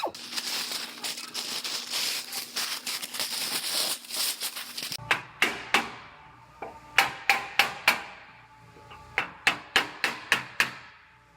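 About five seconds of dense crackling and hissing noise, then a hammer beating on steel: quick runs of sharp, ringing metal blows with short pauses between them.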